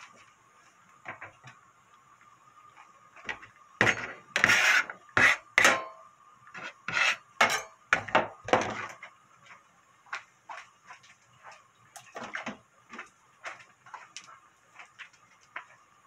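Metal spoon and dishes clattering in the kitchen: a quick run of loud knocks and clinks from about four to nine seconds in, then lighter, scattered clicks.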